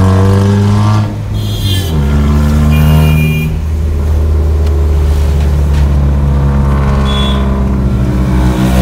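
Hyundai i20 with a loud modified exhaust, its engine droning steadily as the car drives. The pitch drops once about two seconds in, and two short higher-pitched sounds come over it in the first few seconds.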